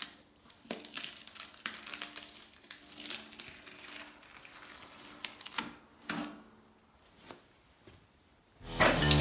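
Irregular crinkling and rustling with sharp tearing sounds, stopping about six seconds in. Rock music with guitar starts near the end.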